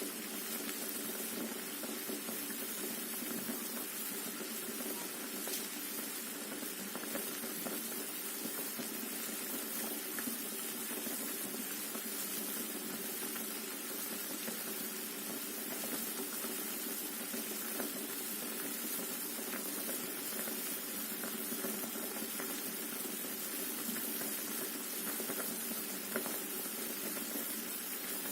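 Potatoes and eggs in a pot of boiling water: a steady bubbling hiss with scattered small pops.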